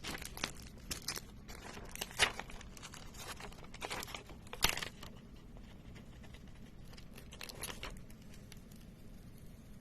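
Adhesive tape being stretched hard between two hands, crinkling and crackling in scattered sharp snaps as it works loose from the paper it is stuck to. The loudest snaps come about two seconds and nearly five seconds in, then only faint crackles follow.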